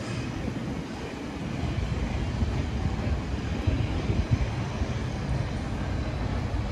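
Low, steady city rumble of distant traffic, with gusty wind noise buffeting the microphone.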